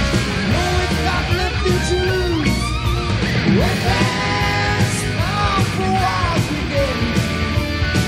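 Hard rock band playing live, an instrumental passage with no singing: an electric guitar lead with bending, sliding notes over pounding drums and cymbals, bass and keyboards.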